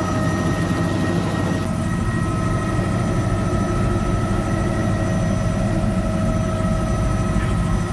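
Helicopter in flight heard from inside the cabin: a loud, steady rumble with several constant high whining tones over it.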